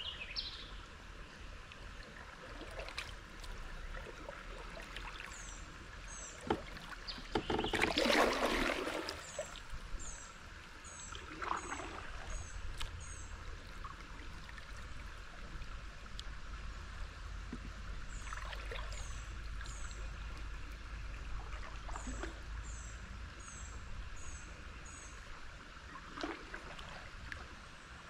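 Kayak paddle strokes splashing in the water every few seconds, the loudest about eight seconds in. A bird repeats short, high, falling chirps in runs between the strokes.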